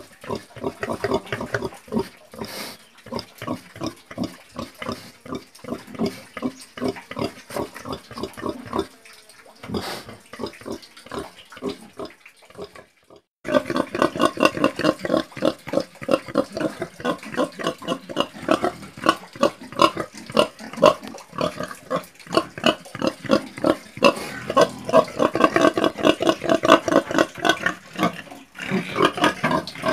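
Pigs grunting in a rapid run of short grunts, a few each second. The grunting breaks off briefly about 13 seconds in, then comes back louder and denser.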